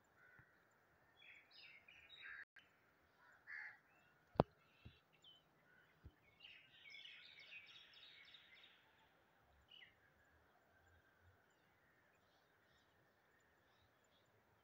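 Quiet outdoor ambience with faint scattered bird chirps, in two spells, and one sharp click about four seconds in.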